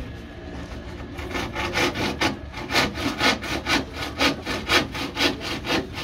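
Hand saw cutting through a wooden board in a steady run of quick, even back-and-forth strokes, starting about a second in.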